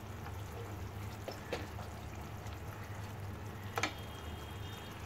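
Water and spiced onion-tomato masala bubbling in an aluminium pot as it comes to the boil, over a steady low hum. Two short knocks, a wooden spatula against the pot, the louder one about four seconds in.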